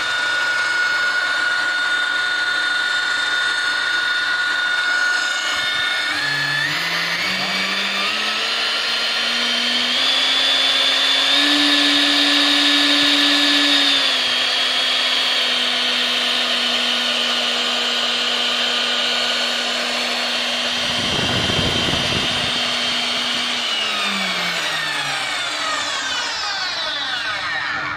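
Powerbor PB100E FRV magnetic drill's 1700 W motor running with a steady whine while its annular cutter bores steel plate. The whine climbs in pitch about six seconds in, with a brief rough noise a little past twenty seconds. Near the end the pitch glides down as the motor winds down and stops.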